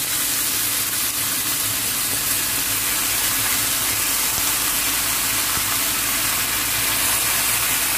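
Cubed pork sizzling steadily in hot oil in a frying pan as it starts to brown.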